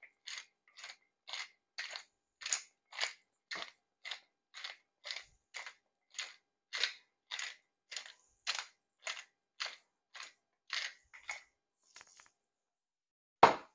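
Wooden pepper mill grinding peppercorns, a short crunching rasp with each twist, about two a second. The grinding stops a little before the end, followed by one louder knock.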